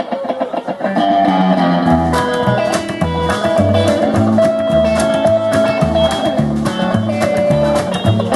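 Guitar-led rock and roll music with bass and a steady beat, the full band coming in about a second in.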